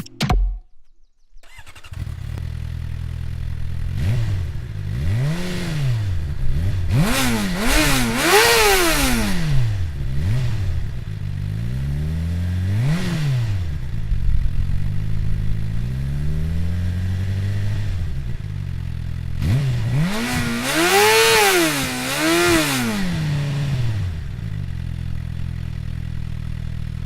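Suzuki GSX-R 750 inline-four engine breathing through an Akrapovic carbon exhaust, idling and then revved with a series of stationary throttle blips. The pitch rises and drops back quickly each time, with a cluster of blips a few seconds in, a single one around the middle, and another cluster later on.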